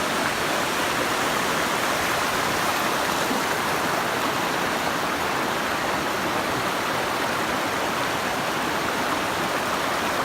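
Waterfall pouring down: a steady, even rush of falling water.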